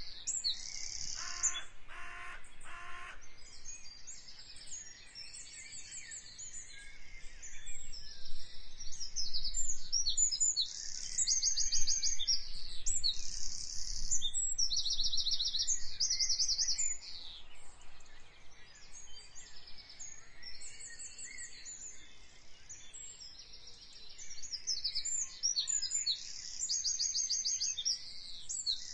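Many small birds chirping and trilling in a dense, continuous chorus of quick, high repeated notes. Three short, evenly spaced tones sound about one to three seconds in.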